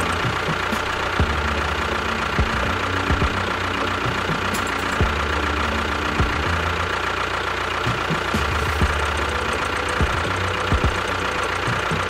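Tractor engine running steadily: a low chugging throb that swells and eases every few seconds, with scattered sharp knocks.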